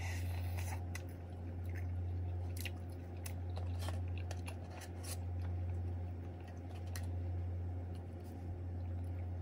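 Mukbang eating sounds: scattered soft crunches and clicks of chewing fried chicken and handling a paper cup and spoon, over a steady low hum that swells and fades about every second and a half.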